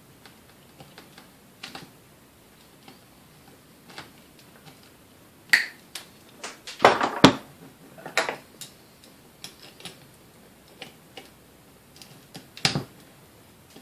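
Irregular clicks and metallic clinks of needle-nose pliers working on the wire connections inside a vintage Sunbeam Mixmaster's metal motor housing. The clicks come in a dense, louder cluster around six to seven seconds in, with another sharp one near the end.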